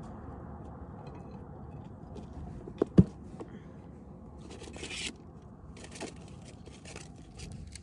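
Plastic picnic cooler lid opened, with two sharp knocks close together about three seconds in, followed by rustling and scraping as things are moved around inside the cooler.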